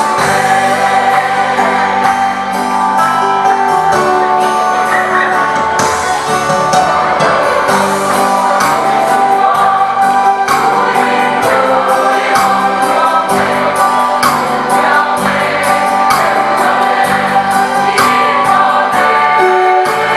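Mixed choir of men and women singing a Christmas song together, over a steady beat.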